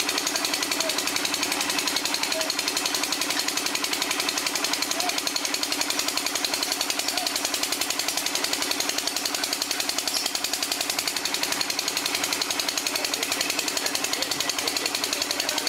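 Water-well drilling machine hammering steadily with a rapid, even pounding that does not let up.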